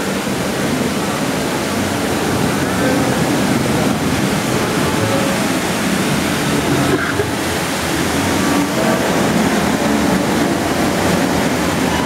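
Steady rush of water in a boat ride's water channel, heard from on board in the dark ride.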